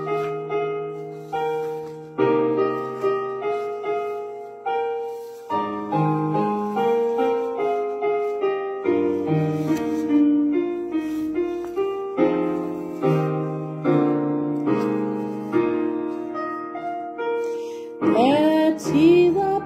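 Piano playing a slow introduction of sustained chords, each struck chord fading before the next. A woman's singing voice comes in near the end.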